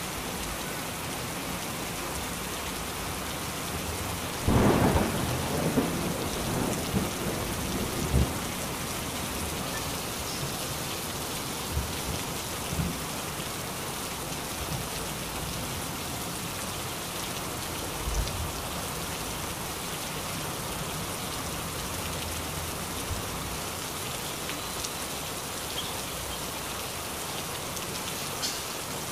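Steady heavy rain falling, with a loud thunderclap about four seconds in that rumbles on for about four seconds. A few fainter low thumps come later.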